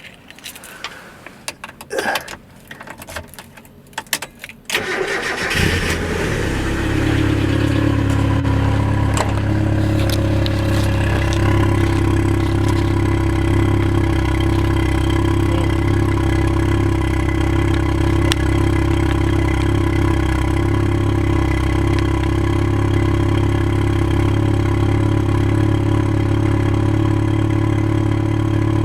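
A few clicks and knocks, then about five seconds in a Mazda NA Roadster (MX-5 Miata) engine starts and settles into a steady idle.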